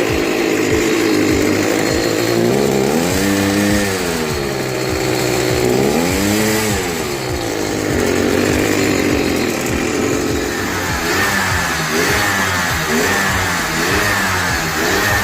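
Small 50cc ATV engine running, revved up and back down twice, then its pitch swinging up and down more quickly near the end.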